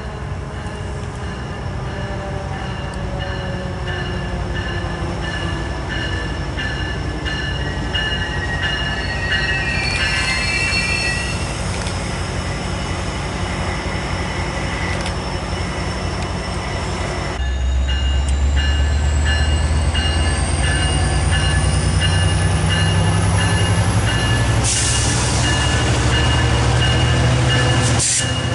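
Metra F59PHI diesel locomotive, its 12-cylinder EMD 710 engine running, approaching with bilevel commuter cars rolling on the rails. Steady high-pitched tones sit over the engine and rail noise, which grow louder, with the engine's low rumble jumping up suddenly about two-thirds of the way in.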